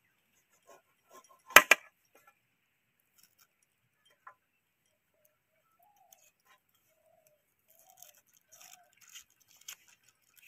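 A kitchen knife working a small onion over a metal plate. About a second and a half in comes a sharp double clack as the blade strikes the plate. After that there are soft, scattered clicks and crackles of dry onion skin being peeled away.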